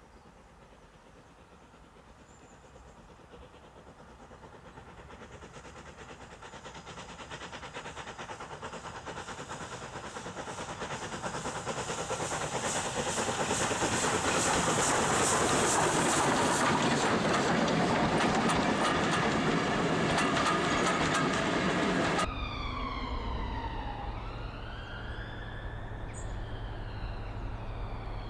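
LMS Fowler 3F 'Jinty' 0-6-0 tank engine hauling coaches, approaching and passing: a fast beat of steam exhaust and the clatter of wheels over rail joints, growing louder to a peak, then cutting off abruptly about two-thirds of the way through. After the cut, a low steady rumble with a siren-like tone gliding up and down.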